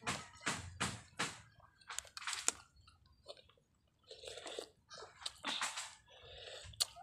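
A metal spoon tapping a balut duck egg's shell to crack it, four quick taps in the first second or so, then close-up chewing and slurping as the broth is sipped from the opened shell about four seconds in.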